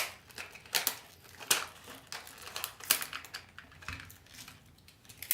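A new plastic-and-metal trigger lock and its packaging being handled: a handful of sharp, irregular clicks and clatters with light rustling between them.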